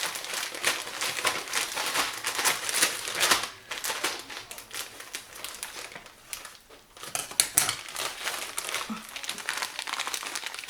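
A plastic bag of sugar crinkling and rustling in quick, irregular handling noises while sugar is scooped out by the cupful, with two short lulls partway through.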